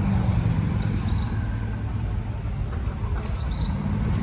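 Steady low rumble of an idling engine, with a small bird giving short high chirps a couple of times.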